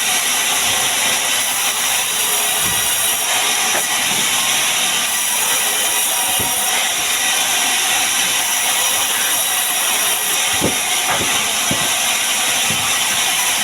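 Power tool working wood, a loud steady hissing whir, with a few faint knocks about six seconds in and again around ten to twelve seconds in.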